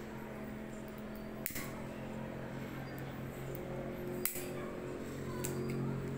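Disposable lighter struck with sharp clicks, once about a second and a half in and again just past four seconds, as it is lit over the wet epoxy resin, against a steady low hum.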